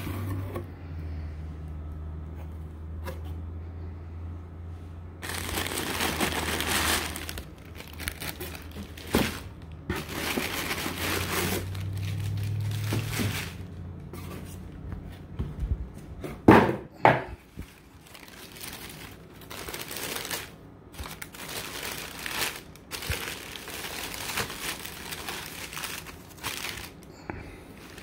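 Tissue paper rustling and crinkling in repeated bursts as it is unfolded by hand. A couple of sharp knocks come about 16 to 17 seconds in, and a low steady hum runs underneath for the first half.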